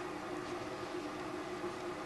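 Steady background hiss with a faint, even hum: room tone with no distinct event.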